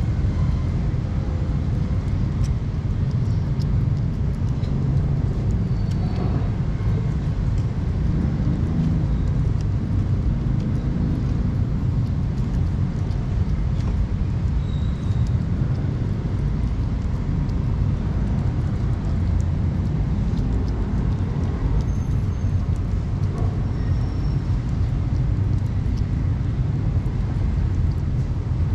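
Steady low rumble of outdoor background noise, even in level throughout.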